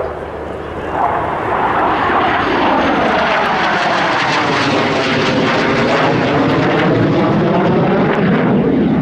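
F-16 fighter jet flying past: loud, steady jet engine noise whose tone sweeps down and back up through the middle as the aircraft passes.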